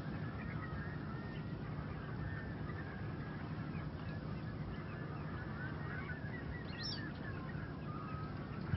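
A flock of waterbirds calling continuously, many short chirping calls overlapping, with one higher call about seven seconds in, over a steady low hum. A sharp click at the very end.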